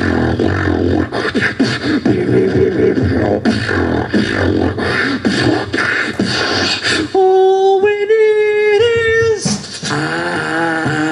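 Dubstep-style beatboxing into cupped hands: a dense rhythm of mouth kicks, snares and low bass sounds. About seven seconds in it gives way to a held, stepping pitched vocal tone for a couple of seconds, and near the end a pitched melodic vocal line starts.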